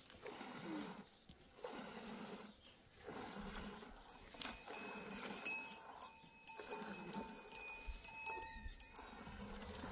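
A goat being milked by hand into a metal pot: milk squirts strike the pot in a steady rhythm, about one stroke a second. From about four seconds in to nine, a high steady tone sounds over it.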